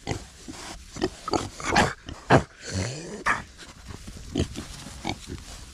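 Young pigs crowded close together, grunting and snorting in short irregular sounds, with a few louder ones around two seconds in.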